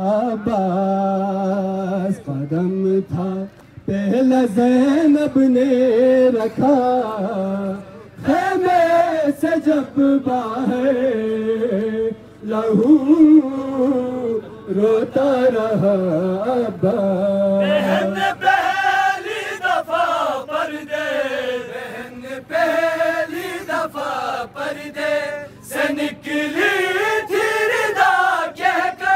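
Male voices chanting a noha, a Shia mourning lament, in a bending, melismatic line. From about two-thirds of the way in, sharp slaps join at about one a second, the beat of matam chest-beating.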